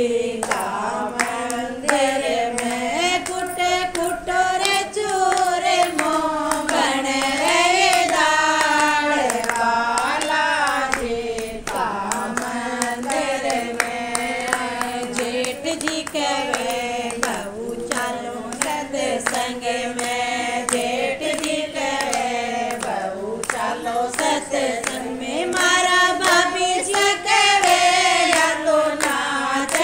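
Voices singing a Hindi devotional bhajan, with hands clapping steadily in time.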